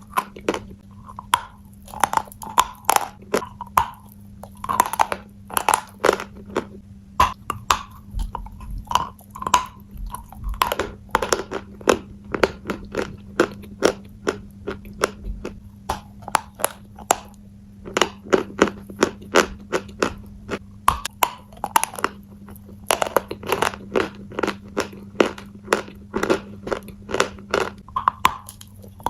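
A person chewing crunchy food: rapid, crisp crunches in clusters, with a short break a little past the middle.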